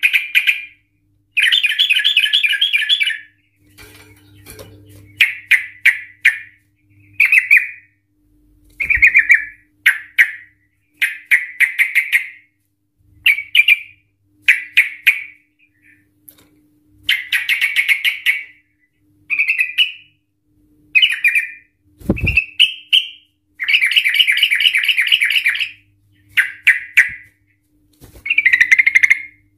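Yellow-vented bulbul singing: a long series of loud, rapid, rattling phrases, each half a second to two seconds long, coming one after another with short breaks. A single dull thump about 22 seconds in.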